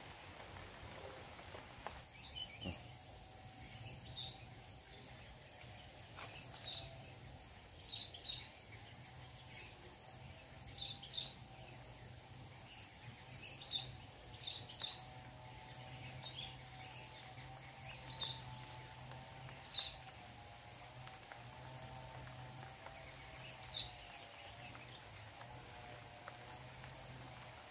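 Rural outdoor ambience: a steady high-pitched insect drone with short bird chirps every second or two, over a faint low hum.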